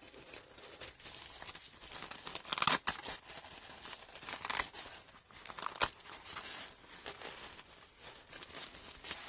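Fabric carrying bag and its padded divider being handled: nylon rustling and crinkling, with a few louder sharp scrapes about two and a half, four and a half and six seconds in.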